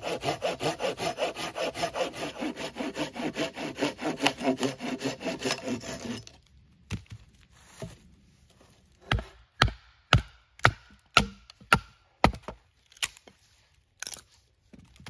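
Folding hand saw cutting through a stick with quick back-and-forth strokes, stopping about six seconds in. After a pause, a large fixed-blade knife (Worktuff Gear Mountain Lion Gen2) chops into a short piece of wood: a run of sharp knocks about two a second, then a few fainter ones.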